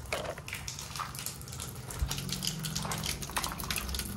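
Toys being washed: water splashing, with a quick irregular run of small clicks and knocks as the plastic toys are handled.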